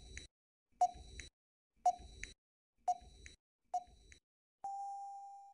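Quiz countdown timer sound effect: five short beeps about a second apart, then one longer steady tone that fades out.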